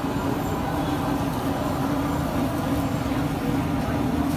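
A steady low mechanical drone with a constant hum, like a running engine, holding even throughout.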